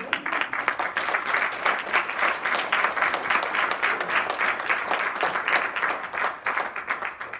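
Audience applauding steadily for several seconds, dying away near the end.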